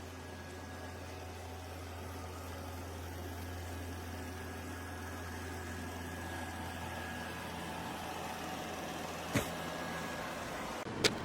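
Shark robot vacuum's motor running with a steady low hum that slowly grows a little louder, with a sharp click about nine seconds in and two more just before it cuts off.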